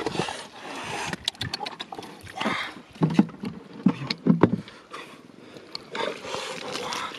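Hands digging and scraping in wet mud, with scattered clicks and squelches, and a few short low grunts in the middle.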